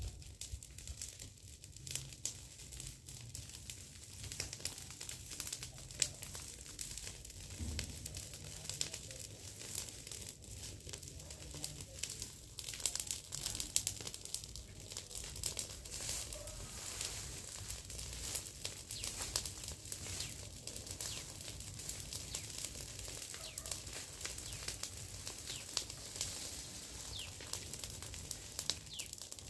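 Dry grass and leaves crackling and rustling as a smouldering pile of yard debris burns and is stirred with a stick and walked through: a dense, uneven run of small sharp crackles.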